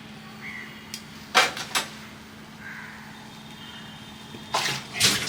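Kitchen handling noises: two short clusters of clattering and rustling, one about a second and a half in and one near the end, over a steady low hum.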